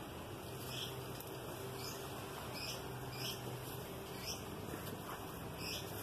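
Small birds chirping: a string of short, high chirps, roughly one every half second to a second, over a faint steady low hum.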